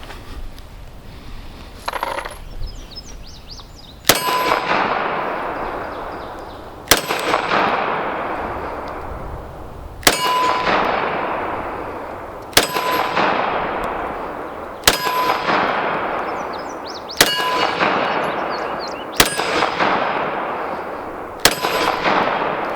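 Ruger RXM 9mm pistol fired eight times at a slow, steady pace, about two to three seconds apart. Each shot has a long echoing tail and a brief ring.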